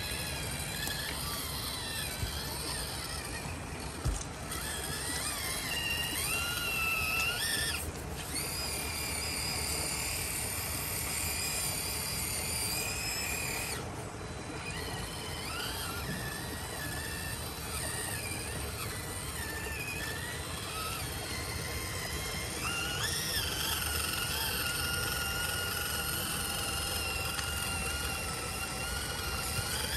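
Electric motor and gearbox of an FMS FCX18 Chevy K10 RC crawler truck whining, the pitch rising and falling as the throttle changes, with a few abrupt breaks.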